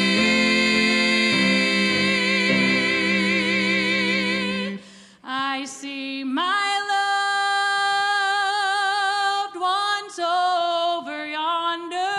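Three voices in gospel harmony holding a long chord with vibrato over piano, which cuts off about five seconds in. After a short break a woman sings solo, with vibrato and no piano under her.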